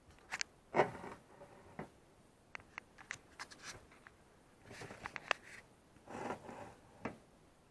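Light handling noise: scattered small clicks, taps and brief rustling scrapes, a dozen or so short sounds with quiet between them, from plastic being touched and moved close to the microphone.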